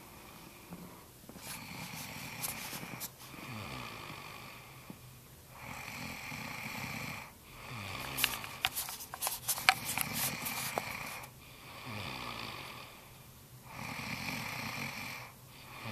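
A woman snoring in her sleep: about six long, rasping snores of some two seconds each, repeating evenly with short pauses between. A few sharp clicks sound over the snoring in the middle.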